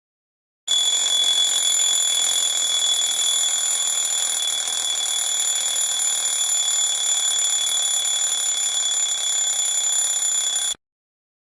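Alarm clock ringing without a break, a steady high-pitched ring, starting just under a second in and stopping abruptly near the end.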